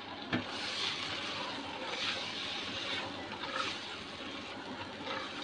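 Chana dal (split chickpeas) sizzling as it fries in hot oil in a pot while being stirred with a silicone spatula: a steady sizzle that swells a little with each stir.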